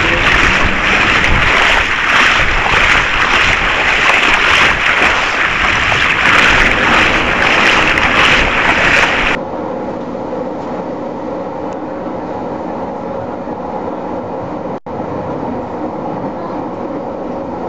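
Running noise of a moving passenger train heard from inside: a loud, even rush for about the first nine seconds, which drops suddenly to a quieter steady rumble. The sound cuts out for an instant about fifteen seconds in.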